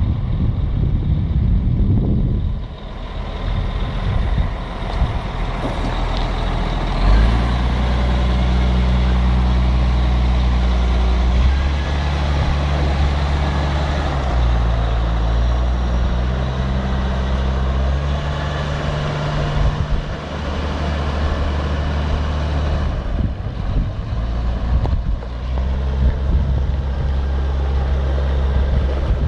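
Caterpillar 966H wheel loader's diesel engine running. After a rumbly first few seconds its note comes up strongly and steps up and down in pitch several times as it is revved.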